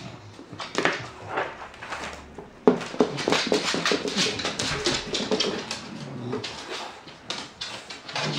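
A bulldog puppy making small dog noises while playing with a rubber ball on a wooden floor, with a run of quick clicks and knocks and one sharp knock about two and a half seconds in.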